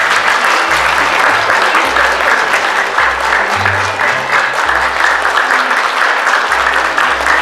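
Audience applauding steadily, with background music and its low bass line playing underneath.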